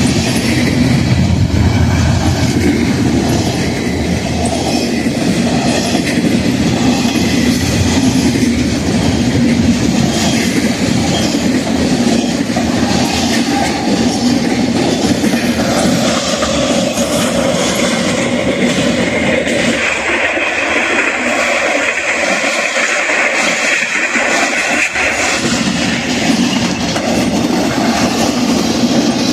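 Freight train of Triple Crown RoadRailer trailers rolling past, a steady rumble with wheels clacking over the rail joints. For several seconds about two-thirds through, a higher-pitched hiss or squeal joins in while the deep rumble drops away.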